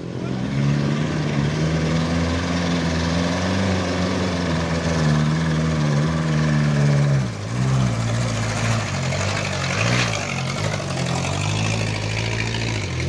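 Engine of a loaded Mitsubishi light truck working hard up a steep gravel climb, with a steady low engine note. The note drops and changes about seven seconds in. Near the end a second engine, a loaded Mitsubishi L300 pickup, comes up close.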